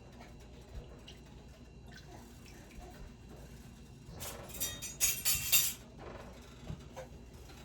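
Spoon stirring a thin sauce of broth and milk in a skillet and scraping the pan bottom to break up flour clumps, with a few light clicks and a louder stretch of scraping and sloshing about four to six seconds in.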